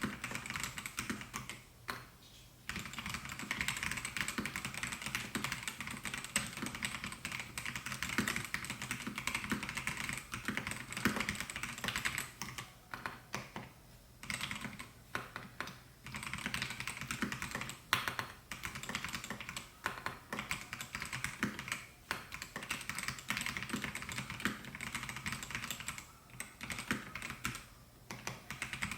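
Melgeek Mojo68 mechanical keyboard with white Pro switches being typed on, a fast, steady run of key clacks. It breaks off briefly about two seconds in, again about halfway, and once more near the end.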